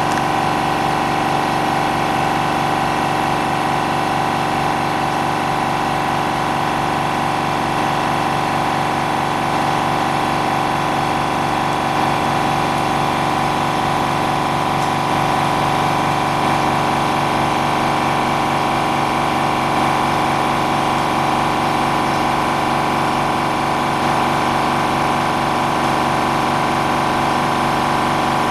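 Electric pump motor of screen-repair equipment running with a steady, even drone.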